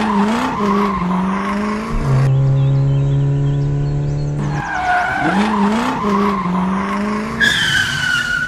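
Dubbed-in car sound effects: engine revs with tire screeching, the same clip heard twice, with a steady low buzzing tone in between and a high screech near the end.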